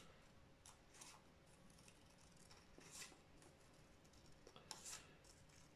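A few faint snips of scissors cutting paper, spaced a second or two apart.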